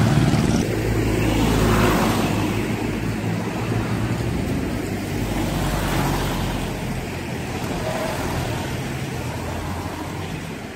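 Road traffic passing close by: a van's engine and tyres at the start, then a large truck going by about six seconds in.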